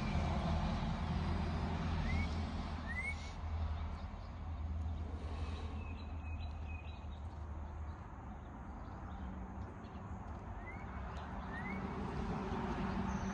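A songbird calling with short, rising whistled notes, heard twice as a pair of notes, over a steady low rumble that fades about halfway through.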